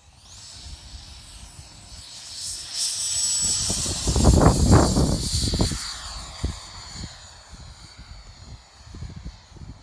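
Wemotec Midi Fan EVO electric ducted fan with a HET 650-68-1600 motor spooling up on a Makojet RC jet model: a high whine rises in pitch about half a second in and holds at full throttle through the takeoff roll. It is loudest a few seconds in as the jet rolls past on the grass, with wind rumbling on the microphone, then fades as the jet climbs away.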